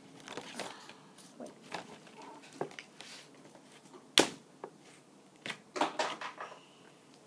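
Toy packaging and small plastic toys being handled: scattered light clicks, taps and rustles, the sharpest click about four seconds in and a few more close together near six seconds.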